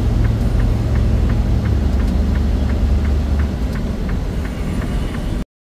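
Semi truck's diesel engine running low and steady from inside the cab as the truck manoeuvres, easing off about three and a half seconds in, with a light, even ticking about three times a second. The sound cuts off abruptly near the end.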